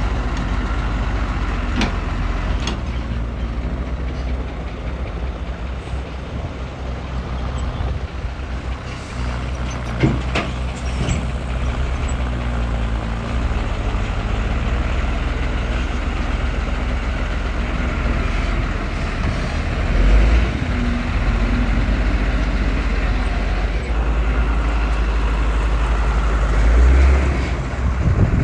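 Heavy diesel earthmoving machinery (a crawler bulldozer and a dump truck) running with a steady low rumble. A few sharp metallic knocks come a couple of seconds in and again about ten seconds in, and the engine noise swells briefly twice in the second half.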